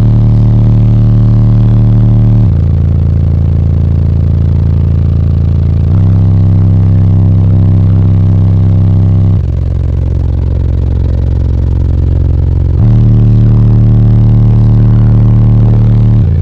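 Four 15-inch Sundown Audio X v2 car subwoofers playing a bass demo at very high level: deep sustained bass notes, each held about three and a half seconds before stepping to a new pitch.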